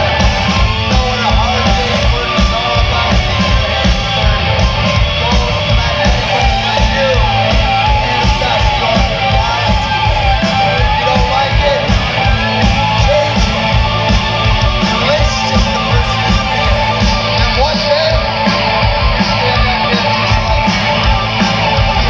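Live hard rock band playing loud: electric guitars, bass and drums with a steady driving beat.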